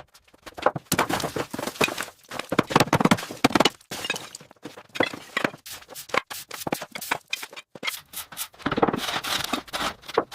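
A dense, irregular clatter of knocks, cracks and scrapes, with brief lulls about four and eight seconds in.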